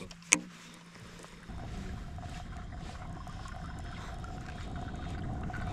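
Muffled underwater rumble with a faint steady hum, as picked up by an underwater camera while a crankbait is retrieved past it; a sharp click comes about a third of a second in, before the rumble sets in.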